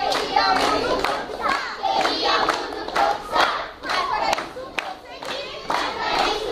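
A group of children singing together while clapping their hands in a steady rhythm.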